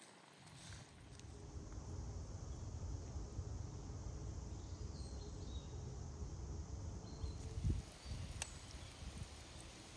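Falafel deep-frying in a pan of oil over a wood fire: a soft, steady sizzle and crackle, with a low thump about eight seconds in.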